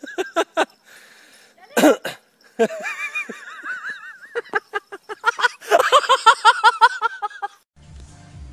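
Shrill human laughter and shrieks in rapid, pitch-wavering bursts, loudest about six seconds in, then cut off suddenly near the end. Background music with a low repeating beat follows it.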